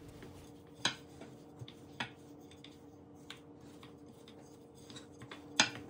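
Wooden rolling pin rolling out dough on a wooden worktop: quiet rolling with a few light wooden clicks and knocks, the loudest one near the end, over a faint steady hum.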